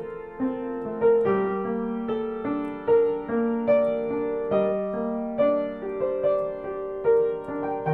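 Piano playing a slow piece, a new note or chord about every half second to a second, each left ringing into the next.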